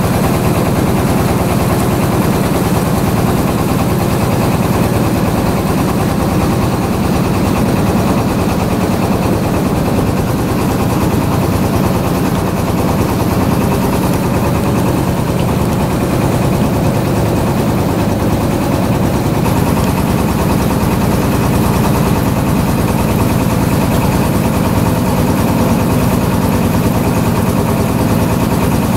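A small wooden tour boat's engine running steadily while the boat is under way.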